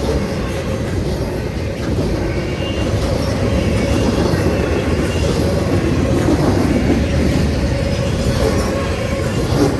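CSX intermodal and autorack freight train rolling through the crossing at speed: a loud, steady rush of wheels on rail, with a faint steady tone running under it.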